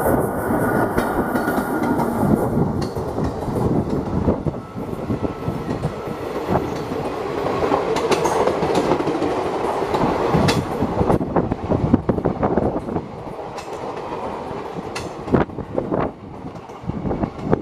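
Passenger train passing at speed behind an electric locomotive: steady rumble of the coaches with wheels clacking over the rail joints, easing off a little in the last few seconds.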